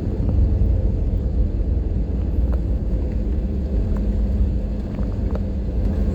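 Airliner cabin noise heard from a passenger seat during the landing: a steady low rumble of the engines and airframe, with a few faint ticks.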